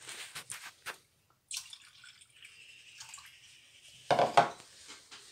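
Milk being poured into a stainless steel pot of cream, a soft liquid hiss. About four seconds in come a few short, louder knocks.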